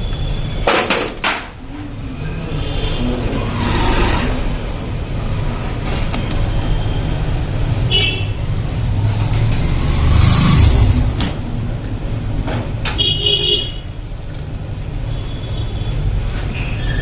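Metal tools and engine parts clinking and knocking now and then, one clink ringing briefly near the end, over a steady low rumble.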